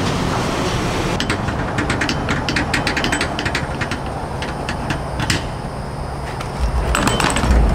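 Gas station fuel nozzle pumping fuel into a truck's tank, a steady rushing noise with a run of sharp clicks. A low rumble comes in near the end.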